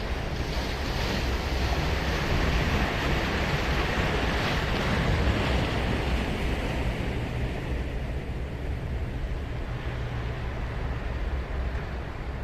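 Ocean surf breaking and washing up a sandy beach. The wash of one wave swells about half a second in and fades away after about six seconds, over a steady low rumble.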